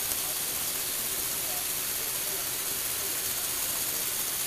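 Small Lego Technic electric motors whirring faintly as they drive the mechanism, under a steady high hiss.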